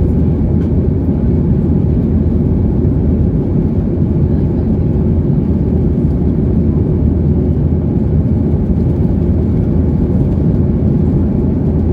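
Steady roar of a Boeing 737-800's CFM56 jet engines and rushing air, heard inside the passenger cabin.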